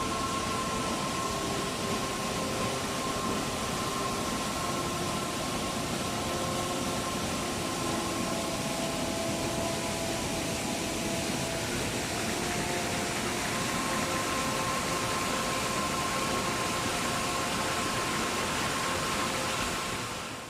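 Steady rush of falling water from a mountain stream and waterfall, an even hiss with no breaks, with faint held tones underneath that change pitch every few seconds.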